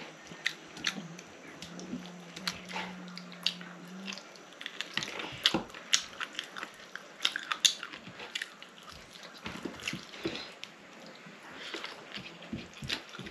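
A person eating a meal: chewing, with many small, irregular clicks and taps. A low steady hum runs under the first few seconds.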